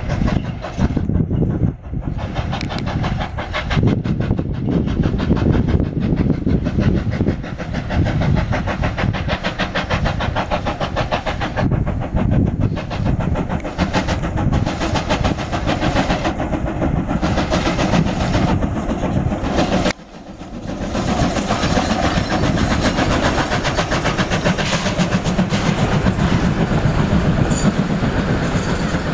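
Steam locomotive W22 working hard as it passes close by, its exhaust beating fast and evenly over the rumble of the train on the rails. The sound breaks off for a moment about two-thirds of the way through and then builds up again.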